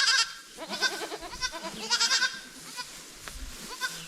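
Goats bleating: three or four high-pitched calls in quick succession, the loudest right at the start and a shorter one near the end.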